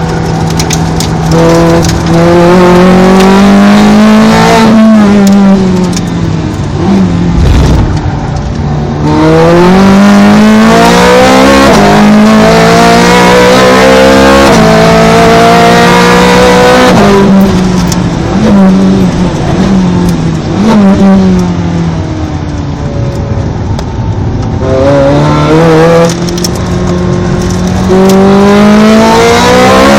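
Ferrari 430 Scuderia's 4.3-litre flat-plane V8 at full track pace, heard on board. It revs hard through the gears with quick upshifts, then drops down through the gears with throttle blips under braking, three times over.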